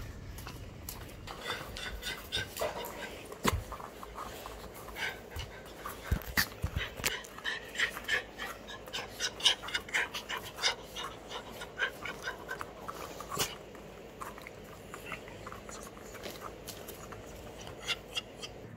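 Two small pet dogs greeting excitedly at close range: panting and whimpering, with many short clicks and taps.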